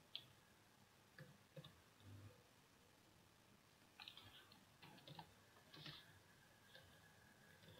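Faint computer keyboard keystrokes and a mouse click: scattered single clicks, then small quick clusters of keystrokes about four seconds in.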